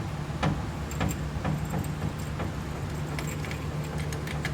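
A steady low machine hum under scattered light metallic clinks and ticks as the Jeep Wrangler JK's axle is let down to droop the suspension.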